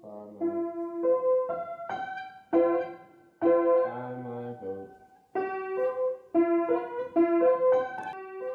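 Upright piano played: a melody of separate notes and chords, each struck and then dying away, in short phrases with brief gaps between them.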